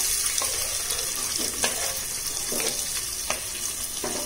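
Chopped onions sizzling as they drop into hot oil with whole spices in an aluminium pressure cooker, with about five short scraping knocks of a wooden spatula pushing them off a wooden chopping board.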